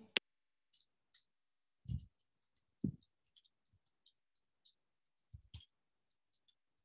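Faint computer keyboard typing: a sharp click at the start, then scattered light key clicks, with a few short dull thumps in between.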